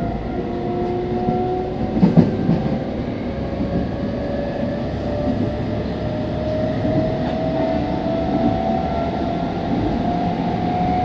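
Meitetsu 3500 series electric train running, with the whine of its traction motors climbing slowly in pitch as it gathers speed over the rumble of the wheels. There is a single knock about two seconds in.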